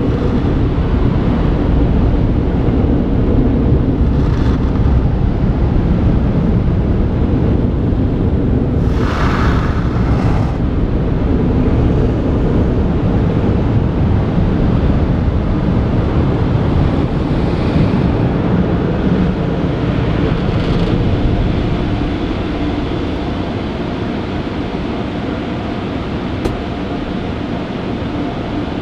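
Automatic tunnel car wash heard from inside the car's cabin: a steady low rumble of the wash machinery with spray rushing against the body. Two brief hissing spray bursts come about nine and ten seconds in, and the noise eases off a little over the last several seconds.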